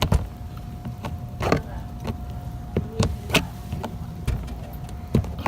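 A handful of sharp, irregular clicks and knocks from a hand tool working at a screw in a car's door panel, over a faint steady hum.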